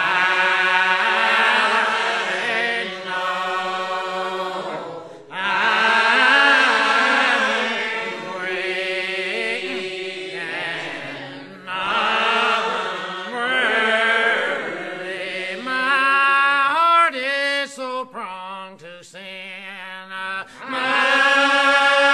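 Regular Baptist congregation singing a hymn in the old lined-out style: slow, long-drawn phrases of several seconds each, with short breaks between lines.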